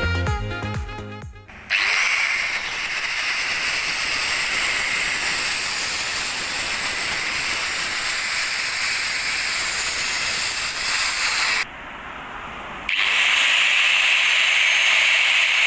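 Kenyu angle grinder running free with no load: it is switched on about two seconds in, runs with a steady high whine, and is switched off near twelve seconds. About a second later it is switched on again.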